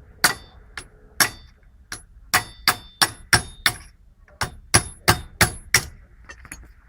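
Hammer striking a flat-bladed tool against the metal clip of a driveshaft CV boot to knock it loose: about a dozen sharp, ringing metallic taps in quick runs.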